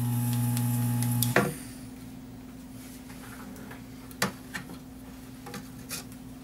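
Desoldering gun's vacuum pump humming for about a second and a half as it sucks molten solder from a capacitor lead on the circuit board, then cutting off with a click. A few light clicks and taps follow.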